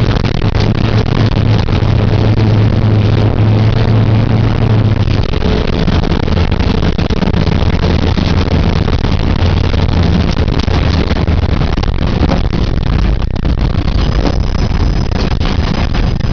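Off-road rally car driven hard: its engine runs loud with a steady drone that drops to a lower pitch about five seconds in, over a constant noisy rush with scattered knocks.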